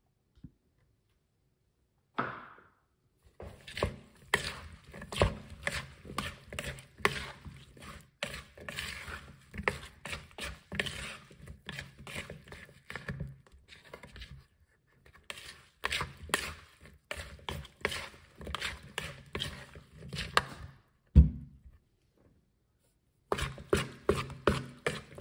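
A metal spoon and a plastic spatula tossing a wet fruit salad in a plastic mixing bowl: quick, irregular clacks and scrapes against the bowl, with a few short pauses and one heavier thump near the end.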